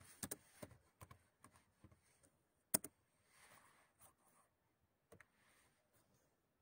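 Faint, irregular keystrokes on a computer keyboard, with one sharper keystroke a little under three seconds in.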